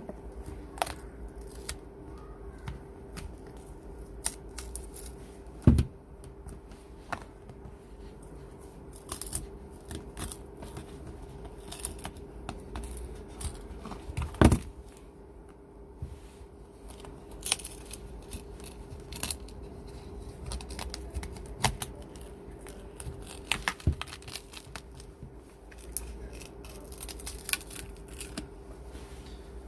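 Plastic pry tools and picks working around the glued plastic back cover of a Nokia G10 phone, making scattered clicks and scraping as the glue gives. There are two louder knocks, about six seconds in and about fourteen seconds in.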